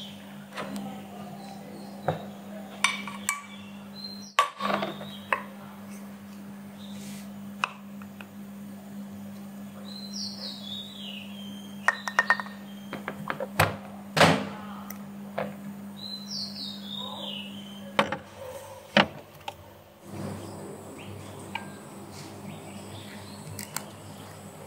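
Kitchen utensil clatter: a wooden spatula knocks and scrapes against a glass jar as thick chilli sauce is spooned in, with a run of short sharp clicks. Under it is a steady low hum that stops about eighteen seconds in, and a bird chirps twice, about ten and sixteen seconds in.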